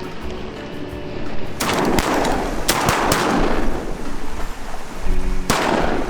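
Shotgun shots at incoming ducks: a quick string of three or four blasts in the first half, each with a short trailing echo, then one more near the end. Steady wind rumble underneath.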